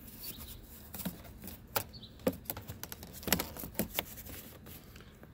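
A run of light, irregular clicks and taps, about a dozen between one and four seconds in, the sharpest a little over two seconds and about three and a half seconds in.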